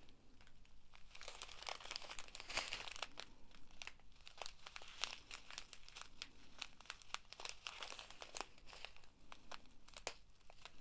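Clear plastic packets of acrylic diamond-painting drills crinkling faintly as they are handled and turned over, with irregular small crackles throughout.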